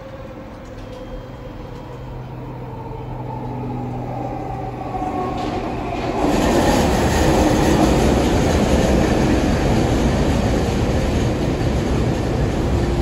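Vancouver SkyTrain Expo Line train, a linear-induction-motor metro, approaching along the elevated track. Its running noise grows steadily for about six seconds, with a faint falling whine. Then it jumps suddenly to loud, steady rolling noise as a train runs close past the platform.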